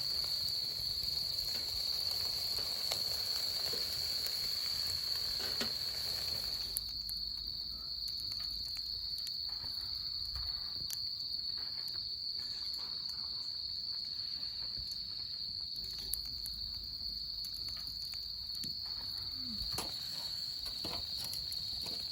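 Chorus of autumn crickets singing a steady, continuous high-pitched trill, with scattered small crackles from a campfire.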